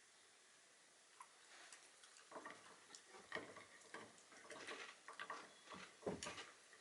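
Shiba Inu gnawing on a hard horse-hoof chew: irregular clicks and knocks of teeth on hoof, starting about a second and a half in and coming thicker and faster toward the end.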